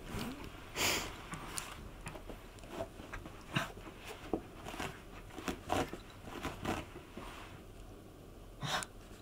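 Toy poodle rolling and rubbing himself into a carpet, the scenting behaviour: irregular short scuffs and rustles of fur and body against the pile, with louder ones about a second in and near the end.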